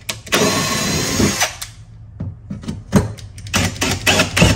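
Cordless drill driving a thread tap into aluminum through a fiberglass deck: the motor runs steadily with a faint whine for about a second and a half, then comes in short, stop-start bursts as the tap is worked in and out.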